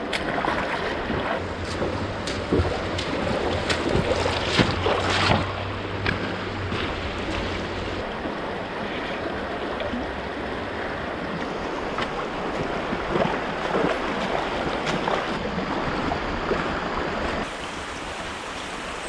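Shallow rocky creek rushing and gurgling over stones, heard close to the water's surface, with irregular splashes through the first several seconds.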